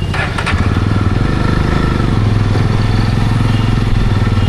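Motorcycle engine running steadily with an even low firing pulse, a couple of light clicks in the first half second.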